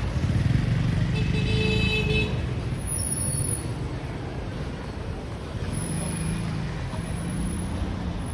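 Street traffic with vehicle engines running close by, loudest in the first couple of seconds, and a horn sounding once for about a second, about a second in.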